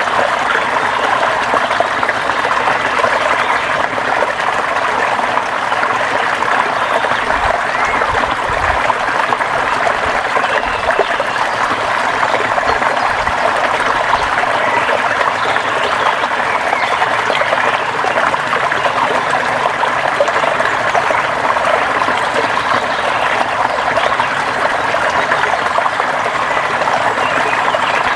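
River water running steadily over rocks, a continuous splashing rush.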